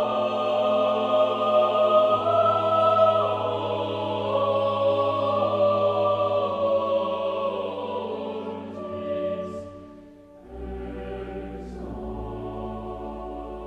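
Background choral music: voices holding sustained chords that fade away about ten seconds in. Quieter, sustained ambient music with a low drone follows.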